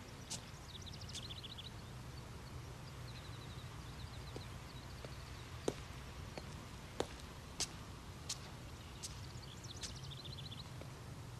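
Faint footsteps of hard-soled dress shoes on a concrete path, a few separate clicks in the second half, over a quiet outdoor background of high chirping trills and a low hum.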